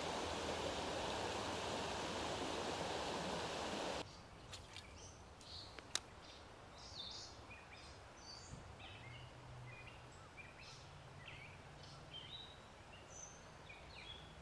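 A steady rushing hiss that cuts off abruptly about four seconds in, giving way to quiet outdoor ambience with small birds chirping now and then and one sharp click around six seconds in.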